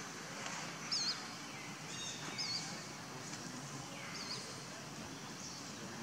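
An animal's short, high, wavering chirps, about four of them a second or two apart, over a steady outdoor background hiss.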